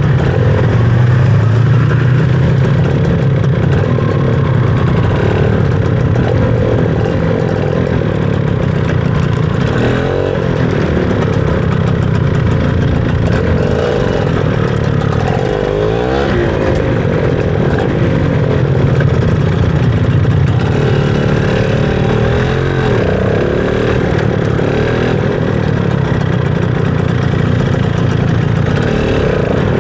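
Motorcycle engine running under way, its revs rising and falling several times.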